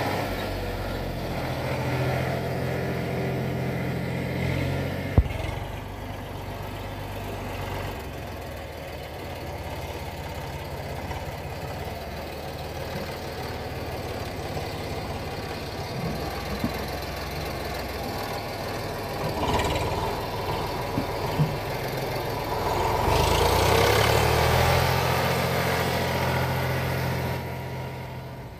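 Eicher 485 tractor's three-cylinder diesel engine running under load as it hauls a loaded trolley over rough ground. It is loud at first and fainter through the middle, then revs up with a rising pitch about 23 seconds in before fading near the end. A single sharp knock comes about five seconds in.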